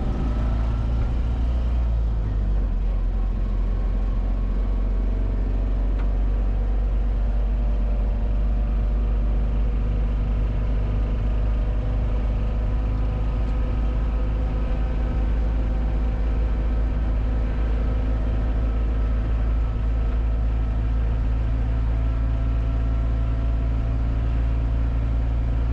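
BMW Isetta's single-cylinder engine running under way, its pitch rising over the first two seconds and then holding steady, over a constant low rumble.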